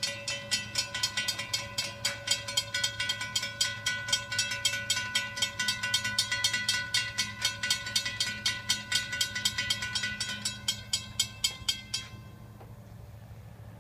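Railroad crossing bells ringing in rapid, even strokes, about four to five a second, then cutting off suddenly about twelve seconds in.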